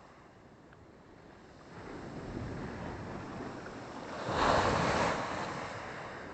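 Sea surf: a wave builds from about two seconds in, breaks and washes up the shore loudest near the five-second mark, then ebbs.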